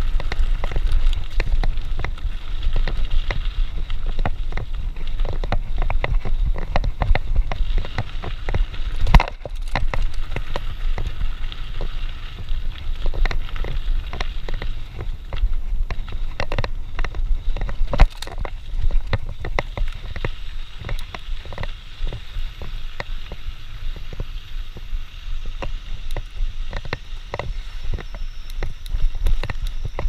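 Mountain bike rolling fast down a dirt trail, heard from a handlebar-mounted camera: a steady rumble of tyres on dirt and wind, with the bike clattering and rattling over bumps. Sharp knocks stand out about nine seconds in and again about eighteen seconds in.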